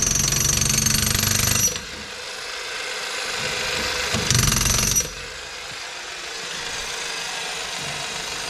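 A power tool running in short bursts: one at the start lasting under two seconds and another brief one about four seconds in, each with a steady high whine over a low rumble. Quieter steady noise lies between the bursts.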